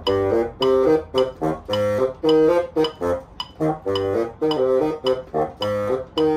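Solo bassoon playing a passage of short detached notes mixed with a few longer held ones. A sharp click keeps time about twice a second behind it, from a metronome.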